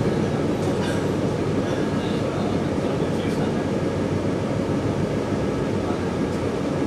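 Steady running noise inside a 485-series electric train car moving at speed, a low rumble of wheels and running gear with a few faint clicks.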